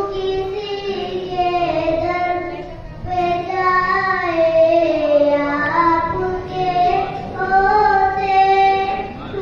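A young boy singing a naat, a devotional poem in praise of the Prophet, solo into a microphone. He sings in long held, wavering phrases, with short breaks for breath about three and six and a half seconds in.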